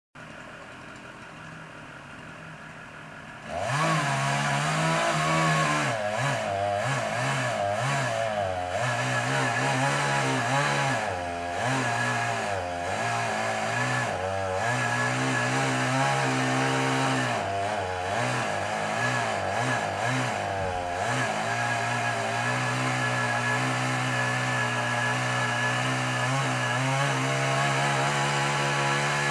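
Two-stroke chainsaw running quietly at first, then throttled up about three and a half seconds in and cutting into a tree trunk. Its engine pitch dips and rises as the chain bites into the wood, then holds steady near the end.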